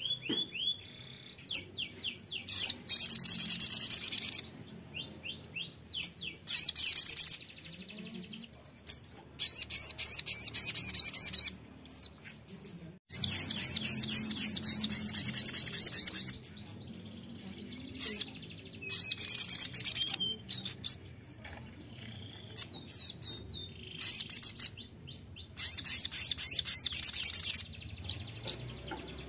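Sogon sunbird singing: bursts of rapid, high, trilling twitters, each a second or two long, repeated with short pauses between them.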